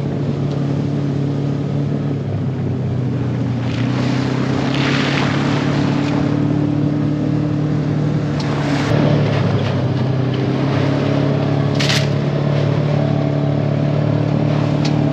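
Side-by-side utility vehicle's engine running at a steady pitch while driving, heard from the open cab, with a few short bursts of rushing noise.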